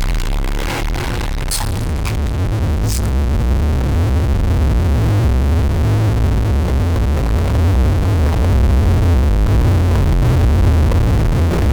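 A burp slowed down and distorted so far that it has become a loud, steady low drone, mixed with distorted electronic music. A few sharp clicks come in the first three seconds.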